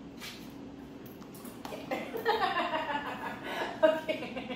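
A woman laughing, starting about two seconds in and loudest near the end.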